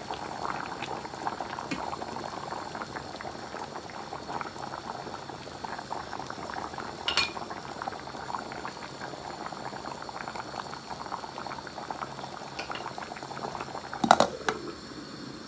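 Curry simmering in a pot, bubbling and popping steadily. A brief clink rings out about halfway, and near the end a glass pot lid clatters as it is set on the pot.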